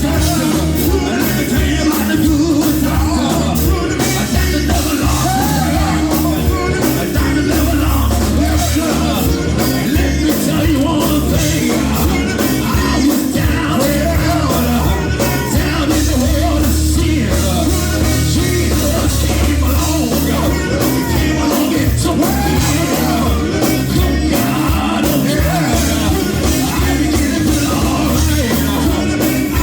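Live gospel music: a full band with drums plays loudly while voices sing and shout over it.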